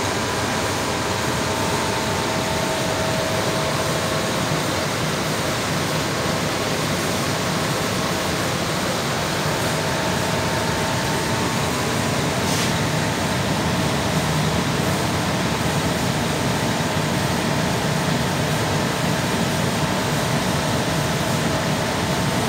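Blower of a 20 HP floor-standing air conditioner running steadily: a loud, even rush of air with a faint hum.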